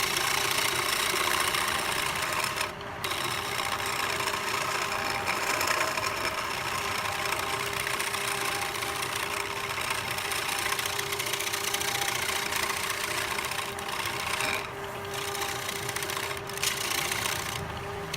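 Wood lathe running while a cutting tool shaves the spinning wood, a steady motor hum under a harsh cutting hiss. The cutting noise breaks off briefly a few times while the motor keeps running.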